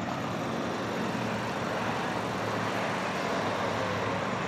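Steady road traffic: car engines and tyre noise, with a low engine hum under an even rush.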